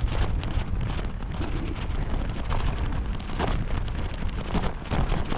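Wind rumbling on an action camera's microphone while a fat bike rides along a lightly snow-covered trail, with a steady crackle of the fat tyres rolling over snow and grit.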